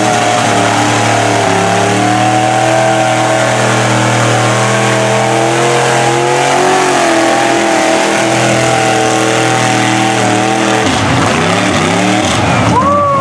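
Lifted mud truck on tractor tires running wide open at steady high revs as its tires churn through a deep mud pit. Near the end the engine note swings up and down several times.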